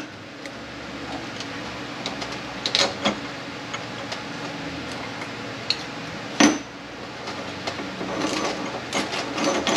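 Scattered light clinks and knocks of metal automatic-transmission parts being handled and set down, the sharpest knock about six and a half seconds in and a flurry of clinks near the end, over a steady low hum.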